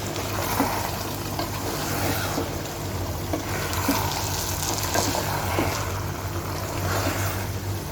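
Polao rice frying with chicken and potatoes in a pot, a steady sizzle with the occasional light scrape of a spoon as it is stirred. A steady low hum runs underneath.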